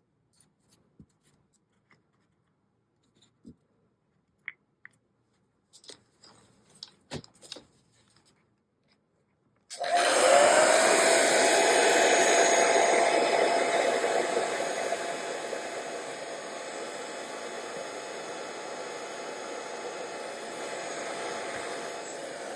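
A few faint clicks and taps, then about ten seconds in a handheld hot-air blower switches on and runs steadily with a whine that climbs briefly and then holds one pitch. It is heating the wax that holds the reed plates on an accordion reed block so the plates will let go.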